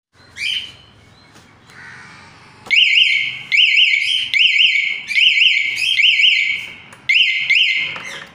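Motorcycle anti-theft alarm siren sounding: a brief chirp about half a second in, then from about two and a half seconds in a loud, rapid rising-and-falling electronic warble with short breaks, which stops near the end.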